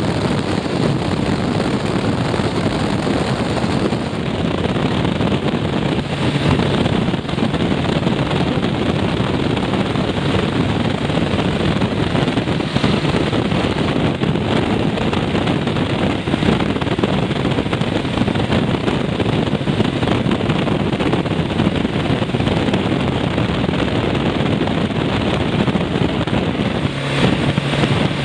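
BMW F650GS motorcycle riding at a steady cruising speed. Wind rushing over the bike-mounted microphone is loudest, with the engine and tyre noise underneath.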